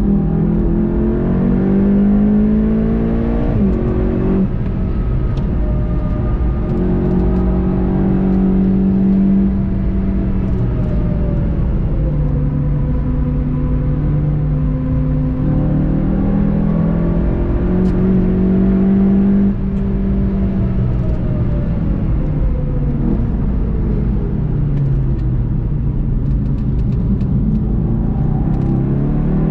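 In-car sound of a VW Golf 7 GTI TCR's turbocharged four-cylinder engine on track, its note rising under full throttle and dropping at gear changes about four and about nineteen seconds in, then falling away under braking, with steady road and tyre noise underneath.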